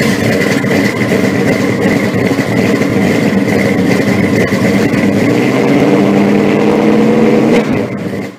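A loud car engine running steadily, with no clear revs, then stopping suddenly near the end.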